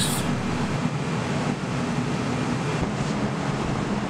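Steady rushing roar of a gas forge's burner, running evenly while steel coupons heat inside.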